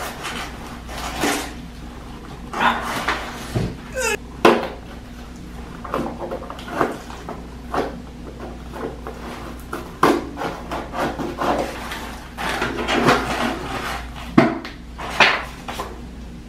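A cardboard box being opened by hand: the packing tape is slit with the pointed tail of a plastic comb and pulled, with cardboard rubbing and scraping and scattered sharp taps and knocks.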